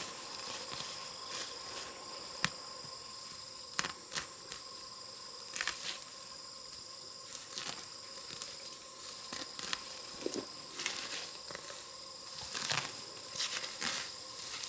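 Insects trilling steadily in several high, unchanging tones, with scattered light knocks and rustles throughout.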